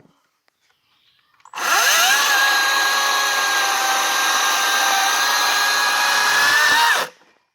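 Kobalt 40-volt brushless cordless chainsaw motor spinning up with a quickly rising whine about a second and a half in. It runs at a steady high whine for about five seconds, then cuts off.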